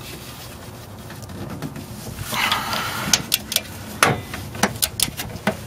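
A long wrench working a bolt in a car's engine bay: a brief squeak about two and a half seconds in, then a run of sharp, irregular metal clicks and knocks through the second half.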